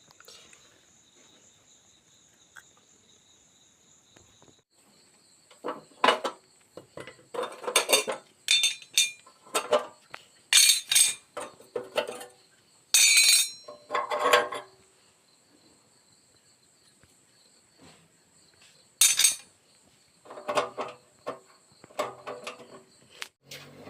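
Metal parts clinking and clattering in irregular clusters of knocks as they are handled, with a steady high-pitched insect-like whine underneath.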